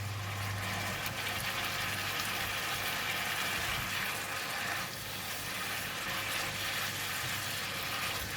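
Bean sprouts and pork slices sizzling in a hot pan as they are stir-fried, with a spatula scraping and tossing them.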